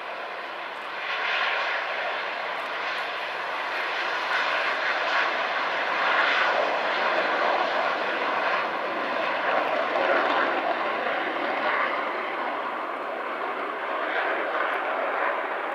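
Twin jet engines of MiG-29 fighters at takeoff power on the takeoff roll: a loud, continuous rushing roar that swells about a second in and wavers in level.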